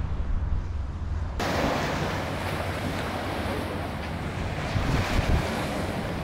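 Wind buffeting the microphone over small waves washing onto a shingle beach. About a second and a half in, the sound changes suddenly to a brighter, fuller hiss of surf and wind.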